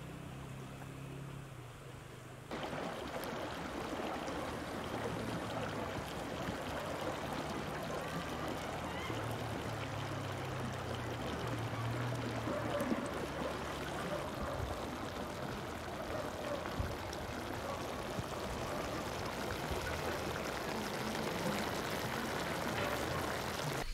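Vegetables sizzling and bubbling in a metal pan over a wood fire: a steady hiss with scattered fine crackles that starts suddenly about two and a half seconds in. Before it there is only a faint low hum.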